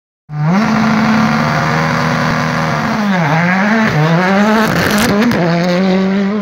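Ford Fiesta R5 rally car's turbocharged four-cylinder engine held at high revs as the car is driven flat out on a gravel stage. The note dips briefly about three seconds in, then swings up and down through gear changes, with a few sharp cracks around five seconds.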